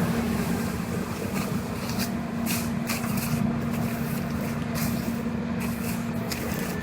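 A machine running steadily with a constant low hum and rumble, with a few light clicks and rustles over it; it stops just after the end.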